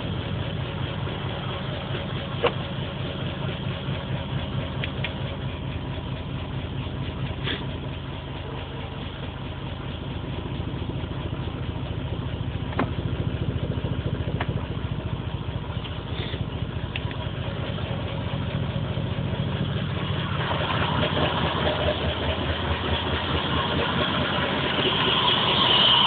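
Car engine idling with a steady low pulse while it throws a P0300 random-misfire code; its spark plugs came out black and smelling of fuel. About twenty seconds in, a hissier noise joins and grows louder toward the end.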